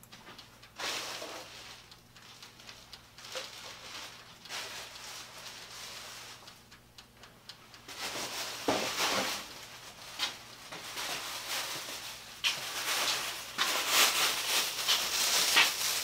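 Thin plastic grocery bag being handled, with irregular crinkling and rustling that grows louder and busier in the second half.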